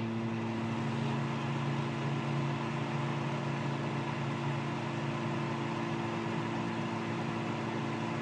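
Microwave oven running: a steady electrical hum over an even rushing fan noise, unchanging throughout, with no beeps.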